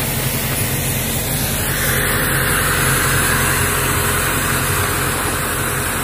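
An engine running steadily, with the hiss of a gas torch coming up from about a second and a half in as it heats an excavator's track-adjuster cylinder; the cylinder is seized and will not pump out.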